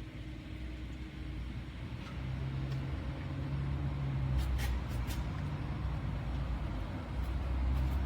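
Turbocharged 1997 Audi A4 B5 quattro under way: a steady low drone from the engine and drivetrain, louder from about two seconds in. A few short sharp ticks come midway. The car's manual gearbox has worn with age and has started to whine.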